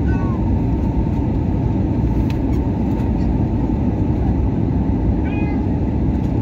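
Steady, even roar of airliner cabin noise, heard from a window seat over the wing during descent: jet engines and rushing airflow.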